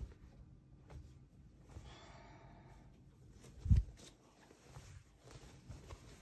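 Quiet handling of folded cotton fabric on a tabletop, with small rustles and clicks, a soft breath about two seconds in, and a single dull thump a little past the middle.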